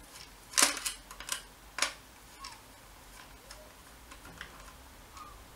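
A few sharp clicks and taps of hands handling a toy quadcopter's white plastic frame arm and its motor plug, the loudest about half a second in and again near two seconds, with softer ticks between.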